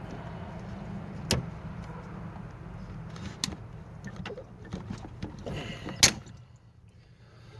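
Hand tools knocking and clanking against metal while working loose a stuck water pump part on a 2.3-litre four-cylinder Mustang engine: three sharp metallic strikes a second or two apart, the last the loudest, over a steady low hum.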